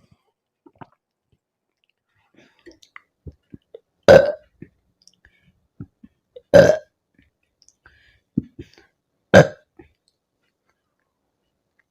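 A young woman burping loudly three times, about two and a half seconds apart, each burp short, after chugging carbonated Limca soda. Faint short clicks come between the burps.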